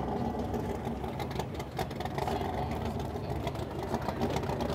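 A car engine idling with a steady rumble.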